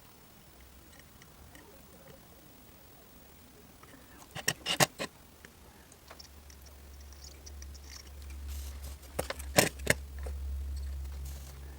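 Sharp clicks and taps of small tools being handled at a soldering bench, in two short clusters about five seconds apart. A low hum comes up in the second half.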